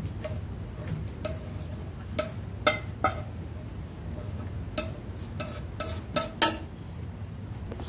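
Wooden chopsticks clinking and scraping against a nonstick pan and bowl as food is pushed out of the pan: a string of light clinks with a short ring, the loudest a little under three seconds in and twice more near the end. A steady low hum runs underneath.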